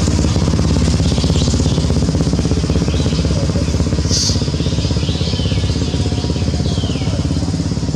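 A small engine running steadily with a low, even rumble. A few short, high squeaks falling in pitch sound over it.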